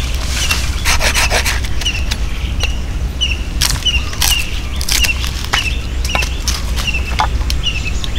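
Machete chopping into short lengths of branch wood: sharp chops at irregular intervals. A high chirping call repeats over and over behind it.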